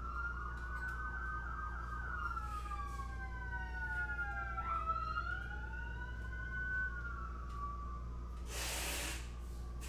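Emergency vehicle sirens, two or more at once: a fast yelp in the first couple of seconds, then slow wails rising and falling and crossing each other. A short burst of hiss comes near the end.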